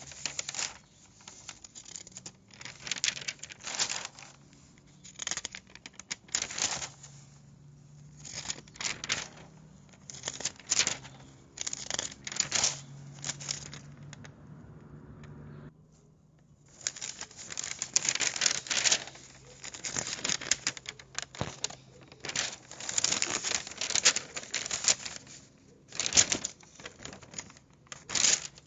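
Newspaper being handled: sheets rustling and crinkling in irregular short bursts. Partway through there is a quieter pause, then the rustling comes back busier and denser.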